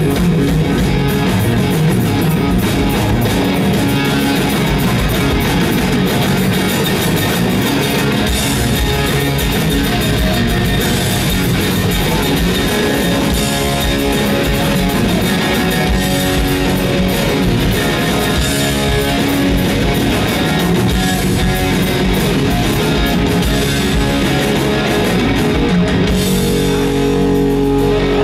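A live rock band plays an instrumental passage, with electric guitar over a drum kit, loud in a large hall. Near the end the cymbals drop away and a chord rings on.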